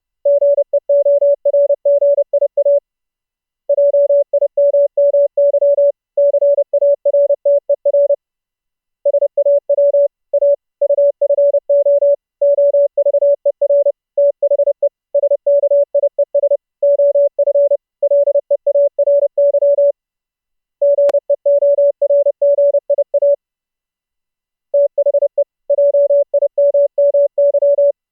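Morse code sent fast as one steady mid-pitched tone, keyed on and off in dots and dashes, with a pause of about a second between word groups several times. A single sharp click about 21 seconds in.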